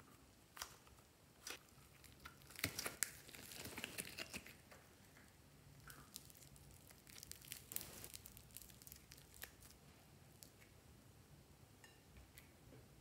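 Foam-bead slime (floam) crackling and crinkling as it is squeezed, stretched and pulled apart by hand: faint, in two spells of dense crackles with a few sharper clicks between.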